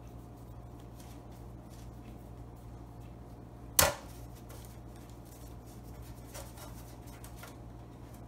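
Hands shaping soft bread dough into balls, with faint rustling and light pats, over a low steady hum. A little under four seconds in comes one sharp, loud knock as a dough ball is set down on the metal sheet pan.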